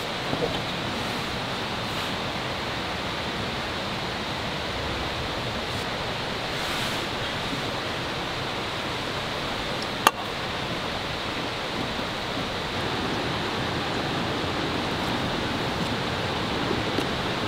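Steady rushing hiss of a portable gas stove burner, with a single sharp click about ten seconds in.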